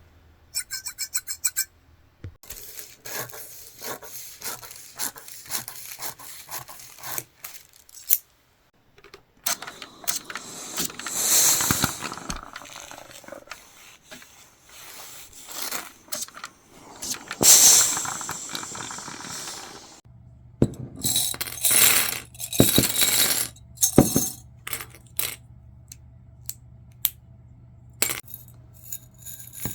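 A run of sewing-room work sounds: rapid clicking, scrapes and small metallic clinks, with a few louder rushing passages. A low steady hum sets in about two-thirds of the way through.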